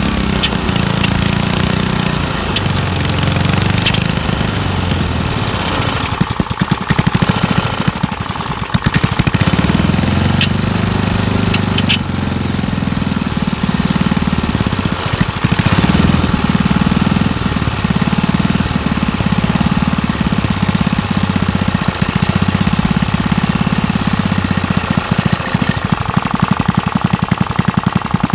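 A Briggs & Stratton single-cylinder engine from a Bolens tractor running on a bench on a test tank, a little unevenly with a couple of brief dips in its beat. The owner thinks the idle needs turning up, since no throttle is hooked up.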